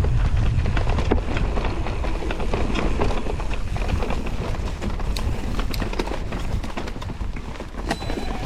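Electric mountain bike riding a rough dirt trail: a steady rumble with constant irregular clicks and knocks from the tyres and bike rattling over the ground.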